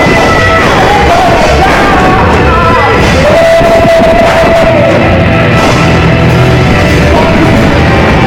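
Rock band playing live and loud, with yelled vocals over the music and one long held note from about three seconds in until about five.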